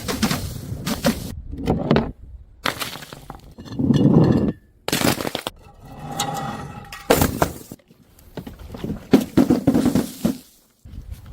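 Glass bottles smashing and crunching in a string of short, separate clips, each a cluster of sharp breaking and clinking impacts, cut off abruptly at the edit points.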